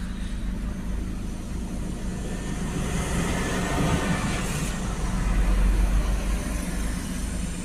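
Ford Focus 1.6 TDCi four-cylinder diesel engine idling steadily, heard from inside the car, with a louder rushing swell of noise from about three to six and a half seconds in.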